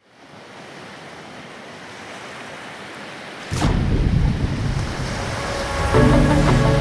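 Logo-intro sound design: a rushing, water-like wash of noise swells in, then about three and a half seconds in a loud falling whoosh lands with a deep rumble. Music with held notes comes in near the end.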